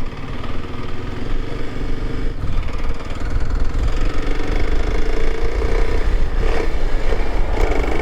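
Kawasaki KLX300's single-cylinder engine running steadily, picking up slightly about halfway through. It is running after a bump start, because the bike's battery is going bad.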